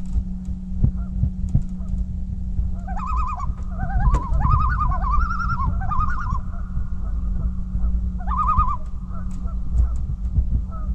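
Waterbirds calling in wavering, honk-like cries, a cluster a few seconds in and another burst near the end, over a steady low hum and rumble.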